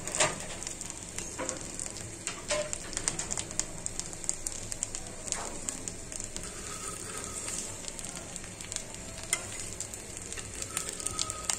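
Flattened, spice-coated chicken pieces frying in mustard oil in a black tawa: steady sizzling with many small crackles and pops.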